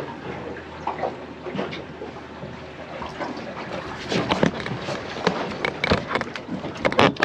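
Irregular knocks and clatters over a steady background rush, coming thicker about four seconds in, with the loudest knocks near the end.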